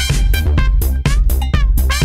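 Electronic dance music with a steady beat of about four strokes a second and heavy bass.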